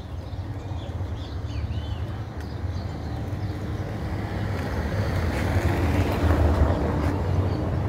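A motor vehicle running close by, growing louder about five to seven seconds in, over a low rumble of wind on the microphone. A few faint bird chirps come in the first second or so.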